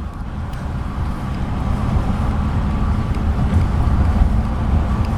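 Steady low rumble of a moving road vehicle, engine and road noise, growing slightly louder over the first couple of seconds.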